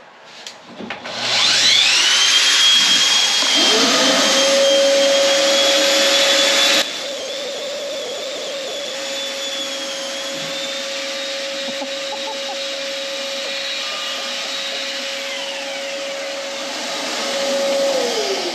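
Electric power-tool motor with a vacuum-like sound spinning up with a rising whine, then running steadily. It drops abruptly in loudness about seven seconds in, and winds down with a falling whine near the end.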